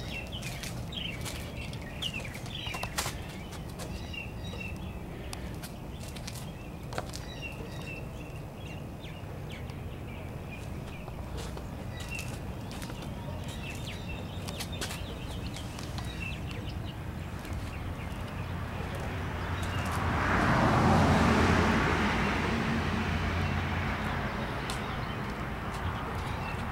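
Outdoor ambience: birds chirping over a steady low hum, with scattered light clicks. About twenty seconds in, a rushing noise swells up, becomes the loudest sound, then slowly fades.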